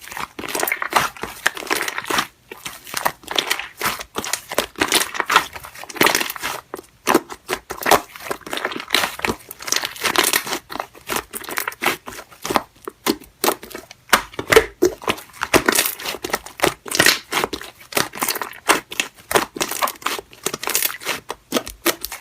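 Slime being pressed and pulled by hand, giving a dense, irregular run of short pops and clicks.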